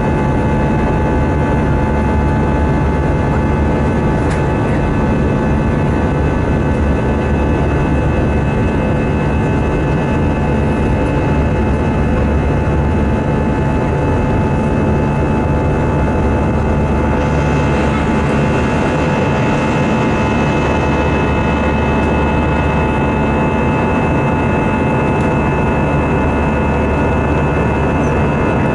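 Airbus A319 jet engine noise heard from inside the cabin by a window over the wing in flight: a steady drone with a deep rumble and several steady whining tones. About two-thirds of the way through, a higher hiss joins in.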